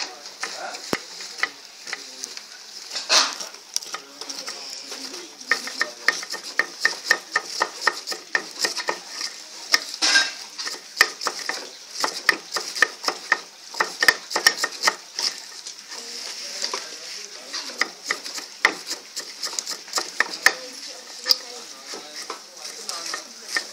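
Knives chopping mustard greens on a wooden board laid over a large metal pot: quick, irregular knife strikes from two people chopping at once, over a steady hiss.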